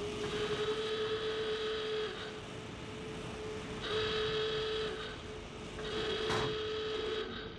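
Alarm horn sounding in long, steady buzzing blasts, three in all with short gaps between them: a defence alert going off as the rig's defences are activated.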